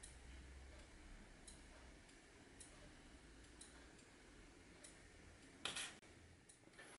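Near silence: faint ticks about once a second over a faint low hum, with one short, louder rasping sound a little before the end.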